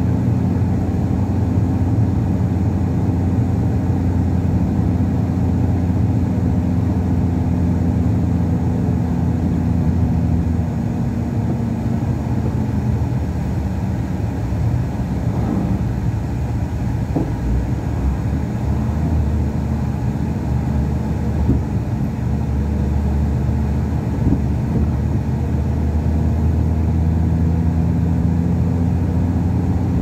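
A truck's engine drones steadily, heard from inside the cab while cruising on the highway. Its note eases off about a third of the way through and builds again near the end.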